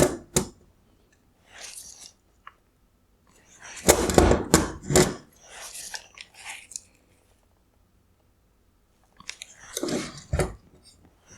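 Hard plastic of a car headlight crunching and cracking in three loud bursts with smaller crackles between, as the assembly is pried and broken apart. The lens is pressed onto the housing bowl and is hard to remove.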